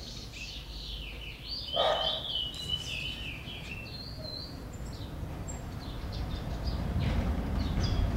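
Birds chirping and singing in quick, warbling phrases, loudest about two seconds in. A low rumble builds underneath toward the end.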